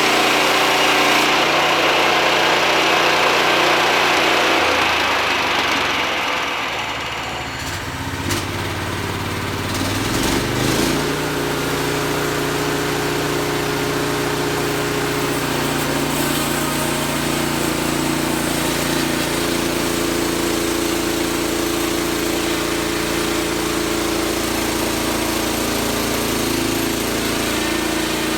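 Wood-Mizer LT40 portable band sawmill's engine running. A loud hiss over it fades away in the first several seconds. After a brief change around ten seconds in, the engine runs on steadily.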